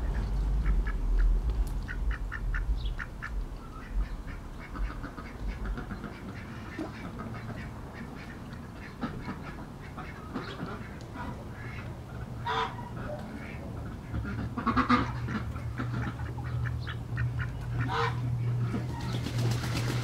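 Ducks quacking with a goose honking among them, the loudest calls coming in the second half, over a low steady city drone.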